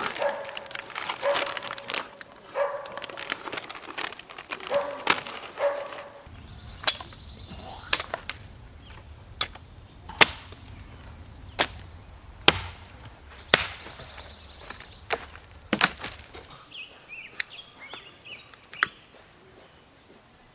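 An axe chopping firewood: single sharp strikes into wood, about one every second or so, starting about six seconds in. Before that comes a busier run of quick knocks.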